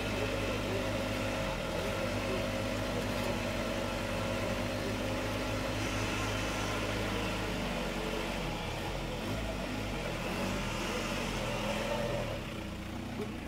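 Engine of a lifted, snorkelled Toyota 4Runner (Hilux Surf) SUV working at low speed as it crawls through mud, a steady engine note that rises and falls in pitch in the second half and eases off slightly near the end.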